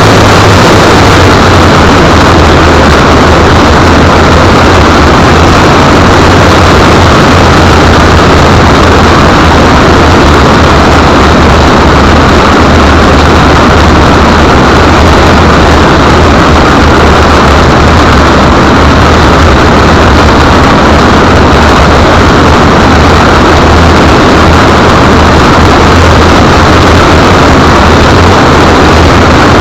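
A Land Rover Discovery heard from a small camera mounted on its underside: a loud, steady, distorted noise with a low engine hum beneath it.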